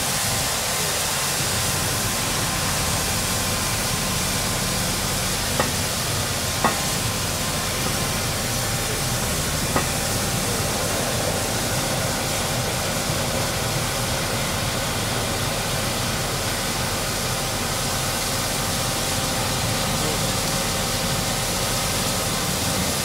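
Excavator-mounted vibroflot rig running steadily while building a stone column: a continuous loud rushing hiss with a faint hum under it. Three sharp clicks come through between about six and ten seconds in.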